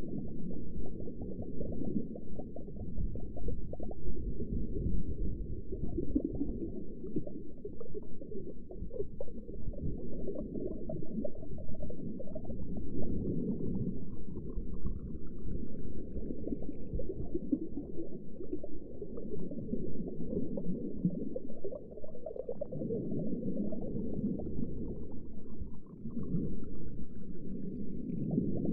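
Underwater ambience: a muffled, steady low rumble with bubbling and gurgling that swells and eases every few seconds. Two faint rising tones sound, one in the middle and one near the end.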